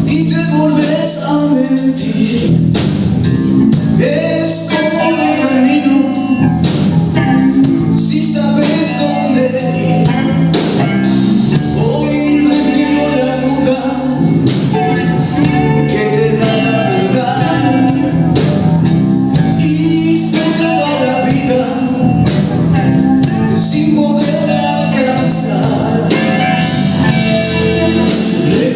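Blues band playing live: guitar and a steady beat under a singer's voice.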